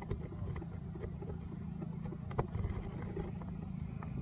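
A steady low engine-like hum, with scattered faint clicks and ticks over it.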